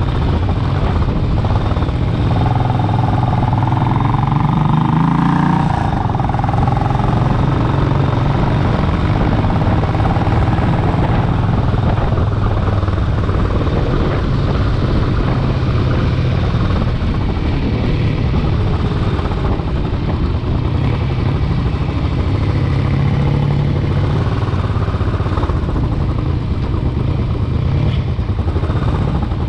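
Motorcycle engine running on the move, with wind rushing over the microphone; the engine pitch climbs a few seconds in and rises and falls again later.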